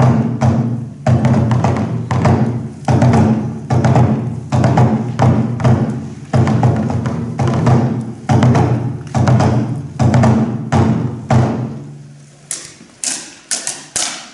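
Kagura taiko drum beaten in a steady rhythm of about two strokes a second, each stroke sharp with a ringing low tone. The drumming stops near the end, leaving a few sharp, bright strikes.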